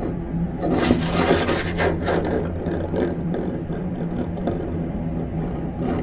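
Halloween sound-effects track: a low steady hum with a harsh scraping, rasping noise that swells about a second in and dies away by about two seconds, followed by scattered clicks.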